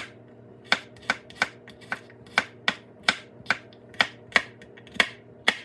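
A kitchen knife chopping garlic cloves on a wooden cutting board: a series of sharp knocks as the blade cuts through and hits the board, about two to three a second and slightly uneven.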